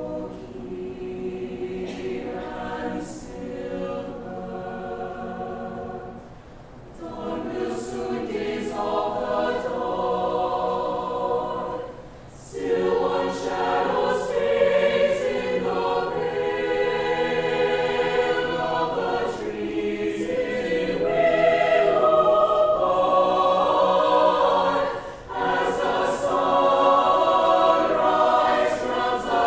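Mixed-voice choir singing a choral piece in sustained chords, with sharp 's' consonants. The phrases break off briefly about six, twelve and twenty-five seconds in, and the singing is louder in the second half.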